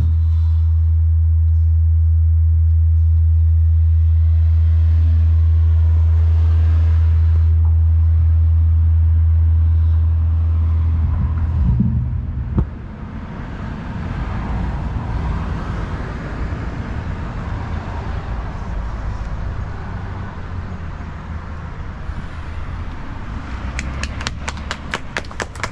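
A loud, steady low rumble that cuts out about eleven seconds in, followed by a sharp knock, then a softer mixed rumble and hiss. Hand clapping starts near the end.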